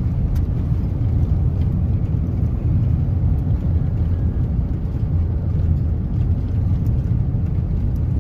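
Steady low rumble of a car driving on a gravel road, heard from inside the cabin: tyre and road noise.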